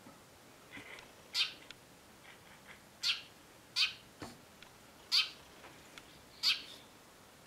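A series of short, high chirping calls, each sliding quickly downward in pitch, five in all at intervals of about one to one and a half seconds.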